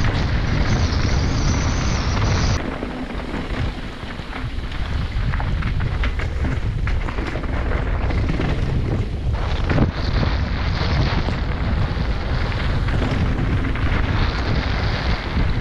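Wind buffeting the microphone of a helmet camera on a mountain bike riding downhill, with tyre rumble on the dirt trail and scattered knocks and rattles as the bike takes bumps. The wind noise drops off abruptly about two and a half seconds in.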